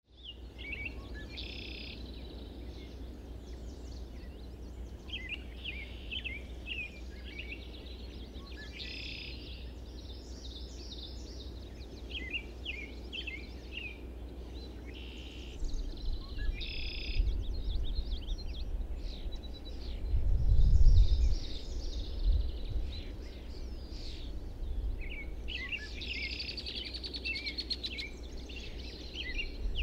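Several songbirds singing: repeated short chirps and occasional buzzy trills, over a steady low rumble that swells loudly about twenty seconds in.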